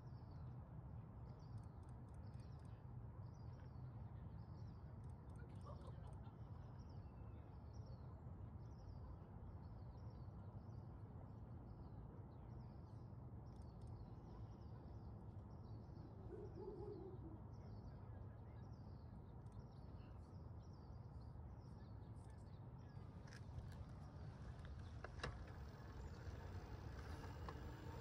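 A bicycle rolling on freeway concrete: a low, steady rumble of tyres and wind on the microphone. A run of faint high chirps, about two a second, carries through most of it, and a sharp tick sounds near the end.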